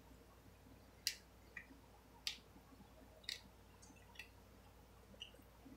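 Faint, crisp snaps and crackles of raw onion layers being pulled apart by hand, about half a dozen short clicks spaced irregularly.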